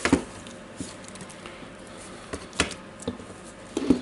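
Several separate clicks and knocks of a cordless drill's plastic housing and motor assembly being handled as gloved hands lift the motor and gearbox out of the opened housing; the loudest knock comes right at the start.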